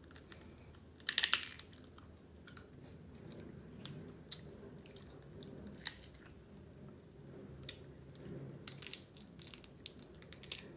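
Close-miked chewing and biting of snow crab meat, with scattered sharp clicks and crackles, the loudest cluster about a second in, as the crab shell is worked open by hand.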